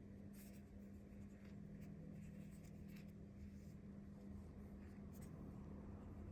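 Faint scratching and rustling of a Funko Pop box being handled, as a few light ticks over a steady low hum.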